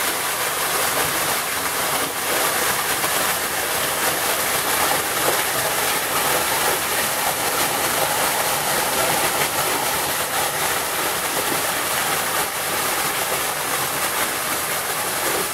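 Waterfall pouring into a rocky gorge and the shallow stream below it running over stones: a steady rushing hiss of water.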